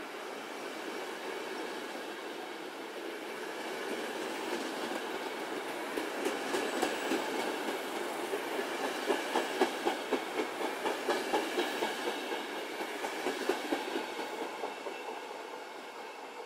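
Trenord double-deck regional train with an E464 electric locomotive rolling out of the station past the platform. Its wheels clatter over rail joints in a regular clickety-clack of about three clicks a second, loudest in the middle, then the sound fades as the train moves away.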